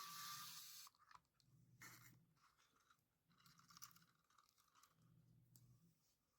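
Faint scratchy scraping and rustling in short irregular bursts, the loudest at the very start: small tools and plastic drone parts being handled while the front arm screws are worked on.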